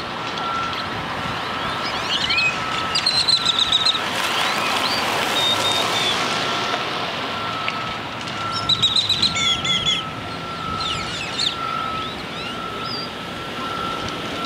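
Birds chirping outdoors, with two loud bursts of rapid repeated chirps, about three seconds in and again about nine seconds in, and scattered single chirps between. A steady high whine comes and goes beneath, over an even background hiss that swells briefly near the middle.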